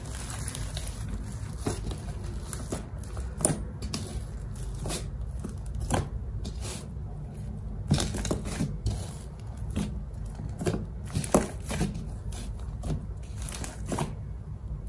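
Hands kneading and pressing glittery slime on a foam mat, making short sticky clicks and squelches about once a second over a low steady background hum.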